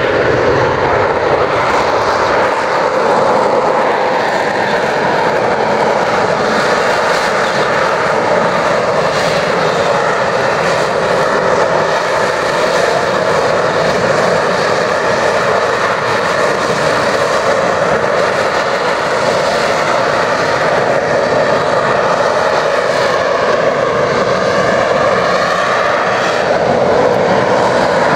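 Sea Harrier jump jet hovering on its Rolls-Royce Pegasus vectored-thrust turbofan: loud, steady jet engine noise. A whine in it slides down in pitch about three seconds in and shifts again near the end.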